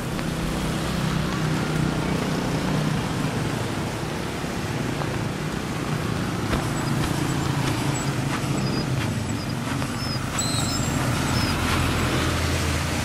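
Road traffic on a rain-wet highway: vehicle engines running low under a steady hiss of tyres and rain.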